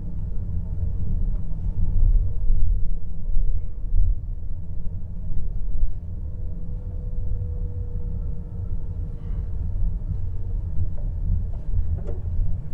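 Low, steady rumble of a car heard from inside the cabin while it moves: engine and road noise, with a faint held hum for a couple of seconds about six seconds in.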